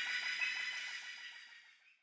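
A forest chorus of animal calls: several steady high-pitched calls held together, with a fast, even pulsing call of about nine beats a second, all fading out near the end.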